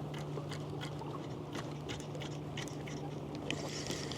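A steady low hum with scattered light clicks and taps, like gear being handled close to the microphone.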